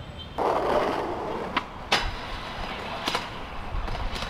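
Skateboard noise: a rough scraping rush starts about half a second in and fades, followed by several sharp clacks of the board.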